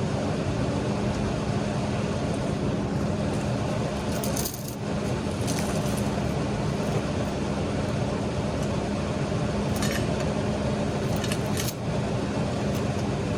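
Steady machine hum under even noise, with a few short metallic clinks and rattles about four to six seconds in and again near ten and twelve seconds.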